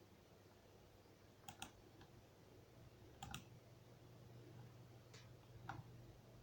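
Near silence with a few faint clicks from working a computer: two quick double clicks, then two fainter single ones, over a low steady hum.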